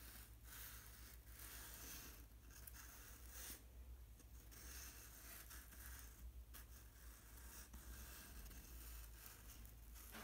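Faint scratching of a pen drawing on sketchbook paper, in repeated strokes of about a second each with short pauses between them.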